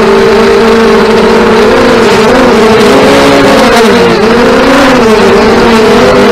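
Several FPV racing quadcopters buzzing, their motor-and-propeller whines wavering up and down in pitch separately as the pilots work the throttle.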